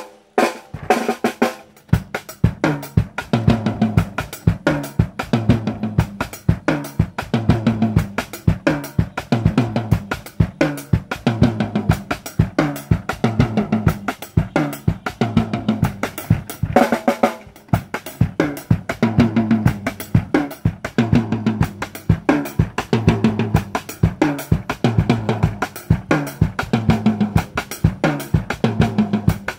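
Victory Drums drum kit played in a steady groove of snare, bass drum, hi-hat and cymbals over a backing beat, blending African rhythms with a western kit style.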